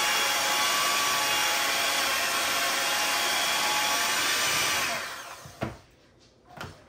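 Electric hand mixer running steadily, its beaters churning a thick cottage cheese and milk mixture in a bowl; it winds down and stops about five seconds in, followed by a couple of light knocks.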